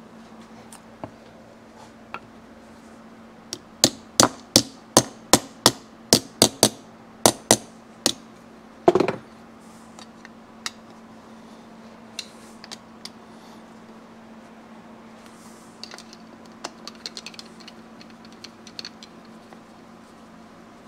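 Sharp metal knocks, about a dozen at roughly three a second, then one heavier clattering knock and scattered light clicks, from a hand tool driving the screws that join the crankcase halves of a Yamaha AT2 125 engine. A steady low hum sits underneath.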